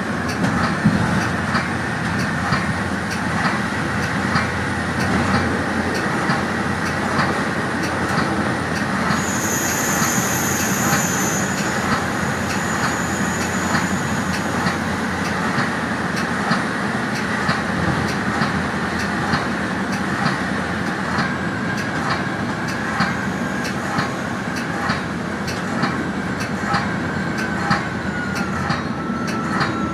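Metra commuter train heard from inside its cab car: a steady rumble of wheels on the track, with frequent sharp clicks as the wheels cross rail joints. A brief high-pitched squeal comes about ten seconds in.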